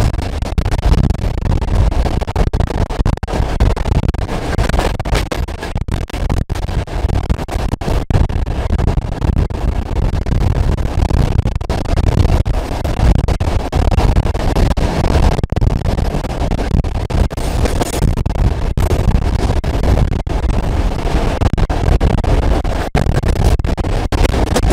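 A diesel-hauled passenger train running, heard from on board: a loud, steady rumbling noise, heaviest in the low end and broken by many brief dropouts.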